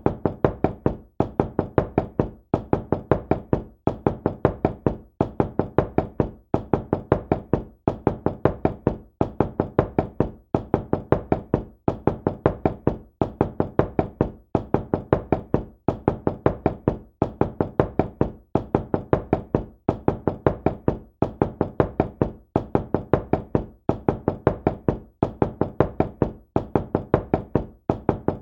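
Knocking on a door: quick clusters of several knocks, repeated about every one and a half seconds in a steady, unbroken rhythm.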